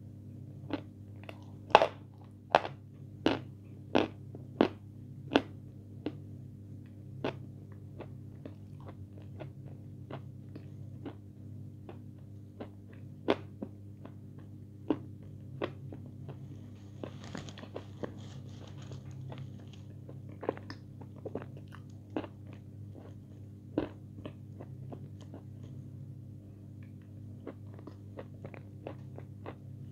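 Close-up chewing with sharp crisp crunches, about one every two-thirds of a second at first, then slower and more spaced out. A steady low hum runs underneath.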